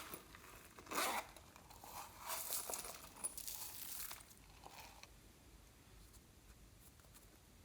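Hands handling slime and its add-ins: short, faint handling noises, one brief burst about a second in and a longer run from about two to four seconds in.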